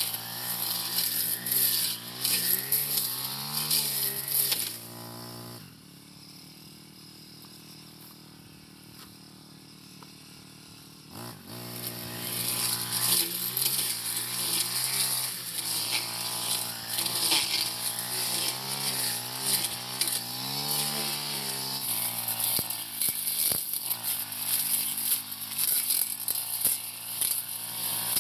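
Four-stroke brush cutter engine revving up and down as it cuts tall grass and brush, with a hiss from the cutting head. About five seconds in it drops to a steady idle for several seconds, then throttles up and cuts again.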